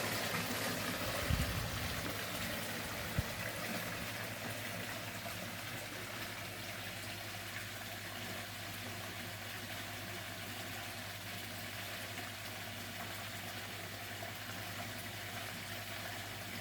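Steady rush of running water from a koi pond, with a low steady hum underneath. Two brief low thumps come in the first few seconds.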